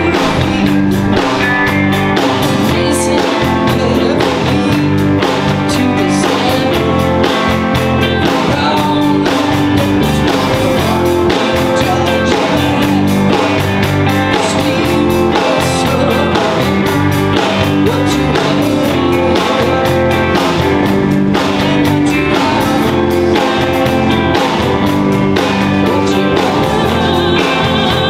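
Rock song with guitar and a singing voice over a steady beat.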